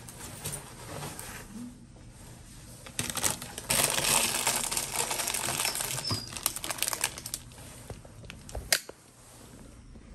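A plastic wrapper crinkling as it is handled, together with the rustle of a nylon jacket being put on. Dense crackling starts about three seconds in and lasts roughly four seconds, then gives way to a few scattered clicks.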